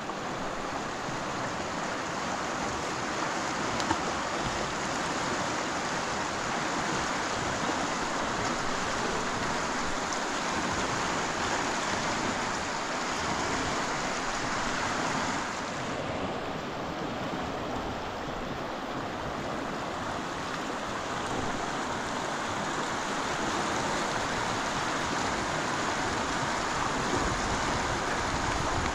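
Steady rushing water, an even hiss with no break, dipping slightly a little over halfway through.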